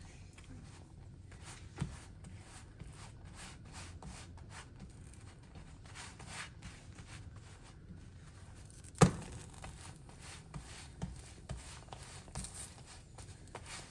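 Faint handling sounds of cooking flatbread in a pan: scattered light clicks and rubbing, with one sharp knock about nine seconds in.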